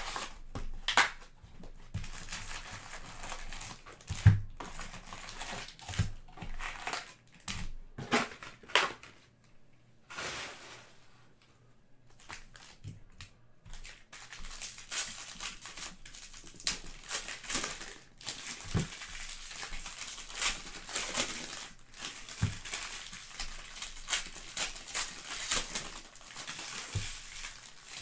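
A cardboard box of trading-card packs is opened and its foil packs pulled out and set down, with sharp knocks and rustles. From about halfway, foil card-pack wrappers crinkle steadily as the packs are handled and torn open.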